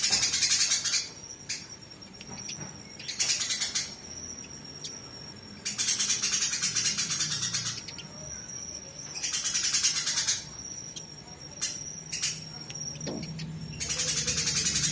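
Eurasian tree sparrows (burung gereja) fighting: bursts of harsh, rapid, high-pitched chattering, five of them, each a second or two long, with short pauses between. A thin, steady high whine carries on through the pauses.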